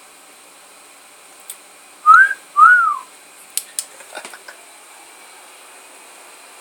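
Two short whistle-like chirps, each rising and then falling in pitch, about half a second apart, from a microphone inside a homemade lidded pot played through a bass amp and external speaker, a sound likened to R2-D2. A few sharp clicks follow.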